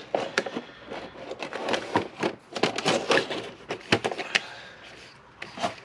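Cardboard board-game box, paper rulebook and plastic insert being handled and packed away: a string of irregular small taps, knocks and rustles.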